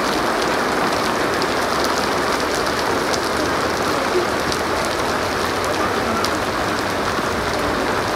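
Steady rain falling on wet brick paving and garden plants: an even hiss with individual drop splashes ticking through it.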